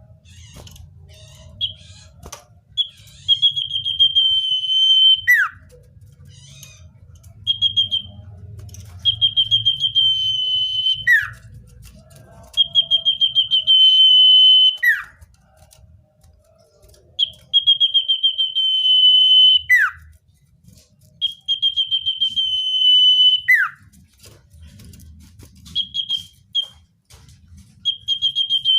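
Common iora (cipoh) singing: a repeated phrase of a long, slightly trilled high whistle lasting about two seconds, ending in a short falling note, given about six times.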